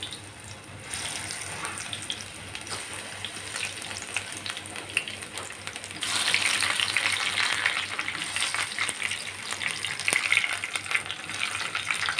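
Batter-coated eggplant slices (brinjal bajji) deep-frying in hot oil: a steady crackling sizzle. It gets louder about six seconds in, as more slices go into the oil.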